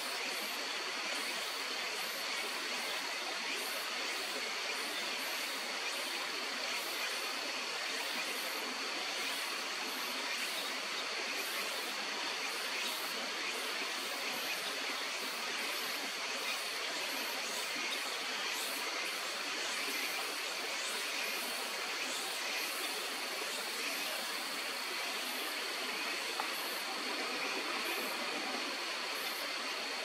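Steady rushing of flowing stream water, an even hiss with no breaks, with a thin steady high tone over it.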